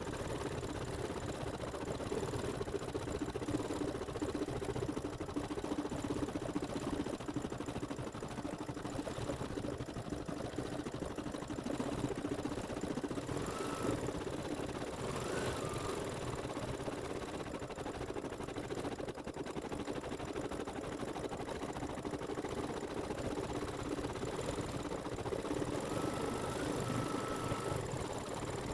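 Computerised embroidery machine running steadily, its needle stitching at a rapid even rate while sewing a satin-stitch fill.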